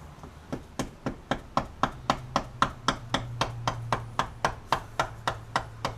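Hammer striking a punch in quick, even blows, about four a second, driving out the pin that holds a Subaru driveshaft into the front differential.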